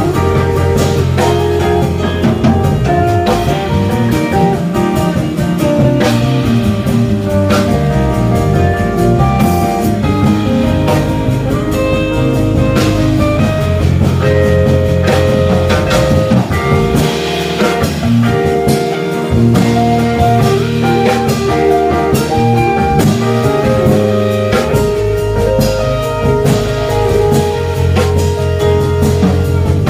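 Live band playing an instrumental passage with no singing: guitar over a drum kit, held notes and a steady beat.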